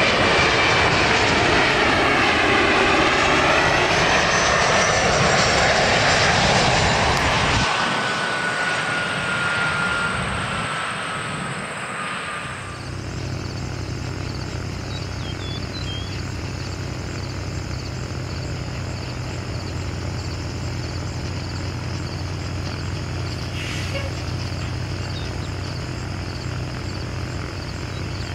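Bombardier CRJ-900 regional jet's CF34 turbofans passing low overhead on approach: a loud jet roar with a whine that slides down in pitch as it goes by. About twelve seconds in, the sound changes abruptly to a quieter, steady low drone from a distant Airbus A320 on final approach.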